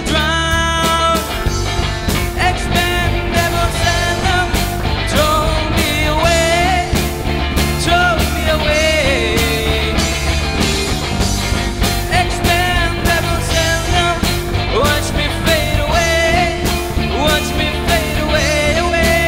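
Live rock band playing: an electric guitar lead line with bends and vibrato over drums and bass guitar.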